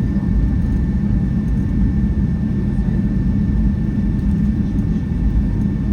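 Boeing 757-200 cabin noise while the jet taxis after landing: a steady, loud low rumble of engines and airframe, with a faint steady high whine above it.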